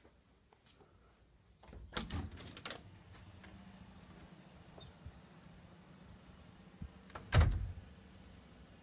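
Front storm door being pushed open with a cluster of clicks and rattles, then a faint high hiss for about three seconds before the door shuts with one loud bang about seven seconds in.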